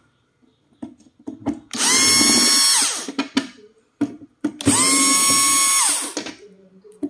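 Cordless drill-driver backing screws out of a plastic case cover. It makes two runs of about a second each, a steady motor whine that winds down in pitch as the trigger is released, with small clicks of screws and handling between.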